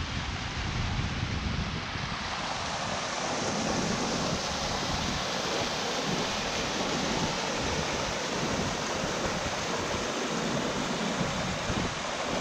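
Small woodland stream rushing steadily over rocks and spilling through a beaver dam, with a low, uneven rumble of wind on the microphone.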